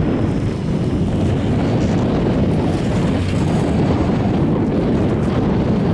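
Wind buffeting a camcorder's microphone on a moving chairlift: a steady low rush of noise.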